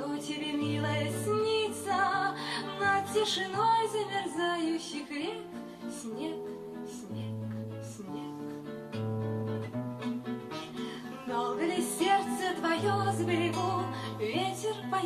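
Background music: acoustic guitar playing bass notes and chords under a wavering melody line.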